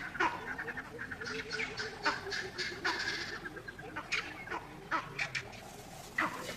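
Vervet monkeys giving alarm calls: a rapid stuttering chatter broken by many short, sharp barks.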